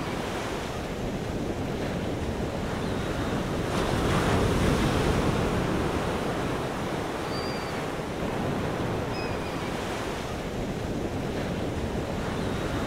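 Ocean surf washing onto a sandy beach, with wind buffeting the microphone. The wash swells louder about four seconds in.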